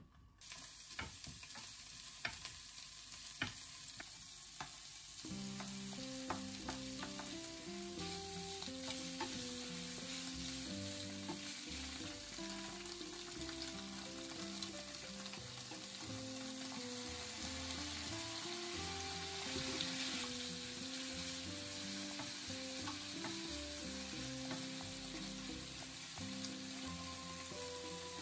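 Green peppers and fried tofu sizzling in oil in a frying pan, stirred with a wooden spoon that knocks against the pan several times in the first few seconds. Soft background music comes in about five seconds in.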